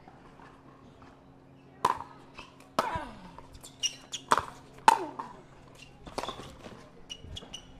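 Pickleball rally: sharp pops of the plastic ball off the paddles and the hard court, starting about two seconds in and coming roughly once a second, the loudest near the middle, several with a short hollow ring after them.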